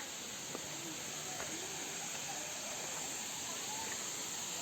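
Steady high-pitched insect drone over an even background hiss, with a few faint clicks.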